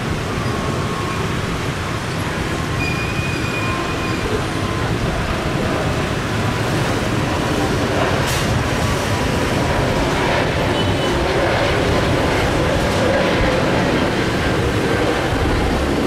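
Airbus A321neo jet engines at takeoff power as the airliner climbs out, a steady rumble that is fairly quiet for an airliner and does not drown out the surrounding street and café noise. It swells slightly in the second half, with a single sharp click about eight seconds in.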